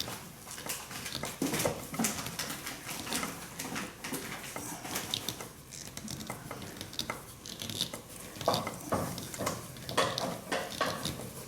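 A screw being turned by hand with a screwdriver into an aerated concrete (aircrete) block, giving an irregular run of small clicks and scrapes as it cuts into the block.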